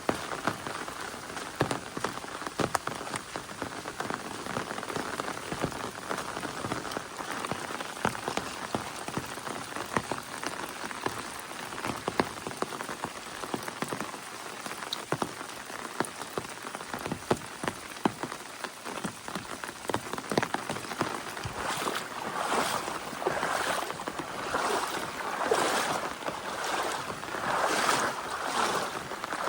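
Steady rain, a dense patter of drops. In the last several seconds, splashing footsteps join in, about one every second or so, through the muddy, waterlogged trail.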